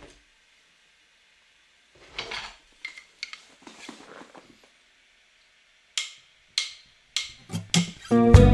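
A scattered handful of short clinks and knocks with brief scraping noises, and music coming in near the end.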